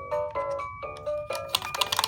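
Background music: a melody of short notes that change pitch several times a second.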